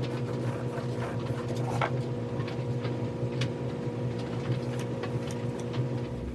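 Steady electrical hum with a few faint scattered clicks and scratches over it.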